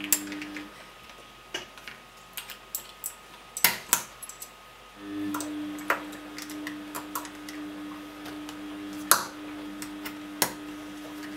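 Snap-together modules of a Znatok electronics kit clicking and clattering as they are handled and pressed onto the plastic base grid, in irregular sharp clicks. A steady low hum in the background drops out just under a second in and returns about five seconds in.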